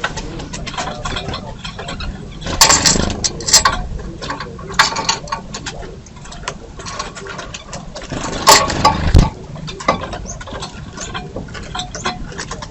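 Birds at a feeder: many sharp taps, clicks and flutters, loudest around three seconds in and again about eight to nine seconds in, over a steady low rumble.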